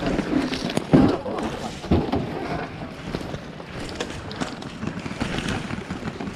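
Wind buffeting the microphone with rustling and scattered clicks and knocks, a louder knock about a second in and another about two seconds in.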